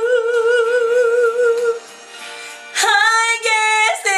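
A woman singing alone. She holds a long high note with a wide vibrato that ends about two seconds in, pauses briefly, then comes back with a run of new sung notes near the end.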